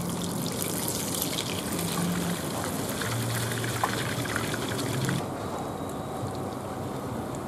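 Hot oil sizzling and crackling in a frying pan as a river worm (rươi) fritter fries. The high hiss drops away somewhat about five seconds in.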